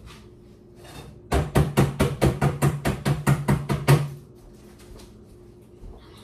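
A rapid, even run of about fifteen sharp knocks, some five a second, starting just over a second in and lasting about three seconds.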